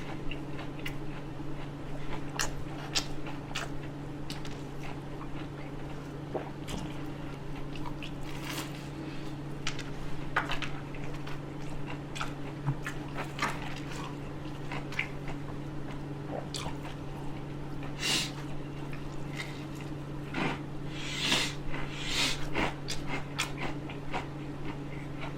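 Close-miked chewing and biting of Raising Cane's fried chicken fingers, picked up by a microphone clipped to the eater's shirt: irregular short clicks and smacks, busiest near the end, over a steady low hum.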